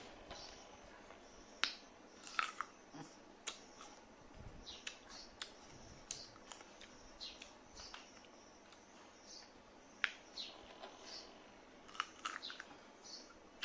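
Small animal eating, with sharp crunching clicks, the loudest about two seconds in, ten seconds in and near the end, among short high chirps that fall in pitch and repeat every second or so.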